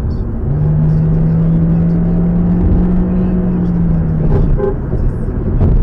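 Steady road and engine noise heard from inside a moving car on a highway. A low, steady horn-like tone starts about half a second in, holds for about four seconds and stops abruptly. A knock comes just before the end.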